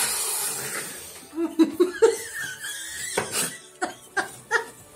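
A woman and a man laughing together: a breathy burst of laughter at the start, then short choppy 'ha' pulses in quick runs.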